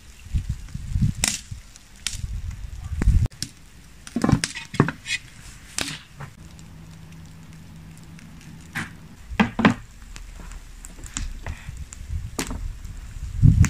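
Scattered sharp clicks and knocks of cookware being handled at a wood-fired cast-iron cauldron, with a low rumble in the first three seconds that cuts off abruptly.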